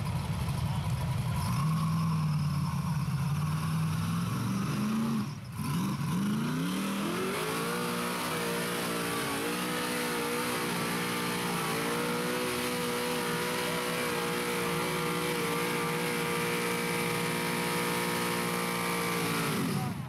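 Rock bouncer buggy's engine revving under load on a steep dirt climb: uneven revs for the first few seconds, a brief let-off about five and a half seconds in, then it climbs to high revs and holds there steadily for about twelve seconds before cutting off suddenly near the end.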